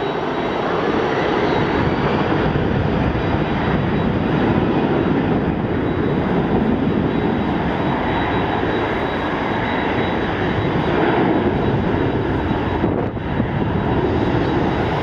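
Jet airliner turbofan engines running at low taxi thrust, a steady rumble and rush of noise.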